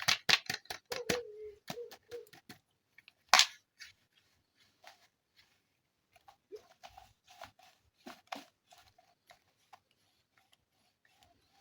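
Sharp plastic clicks from a toy being handled. A fast run of clicks, about six a second, slows and stops about two and a half seconds in, a single loud click follows a second later, then faint scattered clicks and light knocks.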